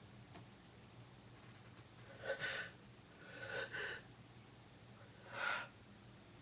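A person's short, breathy gasping inhalations, four of them with the middle two close together, typical of a sneeze building up.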